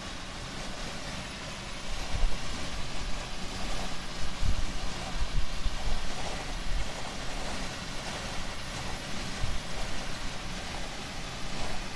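Road and engine noise inside the cab of a vehicle driving at highway speed: a steady low rumble that surges unevenly a few times.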